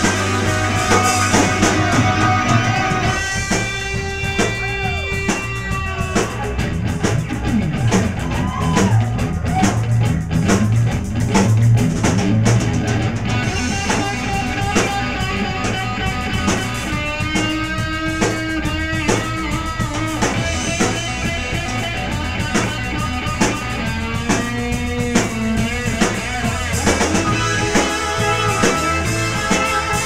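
Live rock band playing an instrumental passage: electric guitar lead with long held, wavering notes over a steady drum kit and bass.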